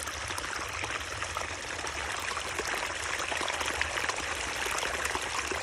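Water flowing and trickling steadily, like a small stream, with a low rumble underneath.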